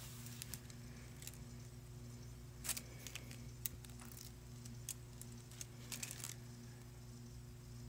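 Faint, scattered light clicks and taps of small hard objects as acrylic nail swatching tools and tips are handled, over a steady low hum.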